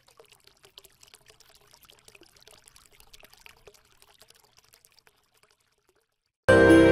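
Faint, irregular crackling and trickling noise, then music cuts in suddenly and loudly near the end.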